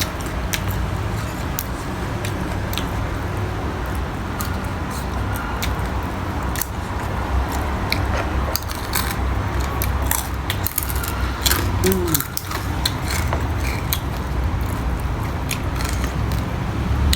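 Close-up eating sounds: chewing with many small mouth clicks and smacks scattered irregularly, over a steady low background rumble.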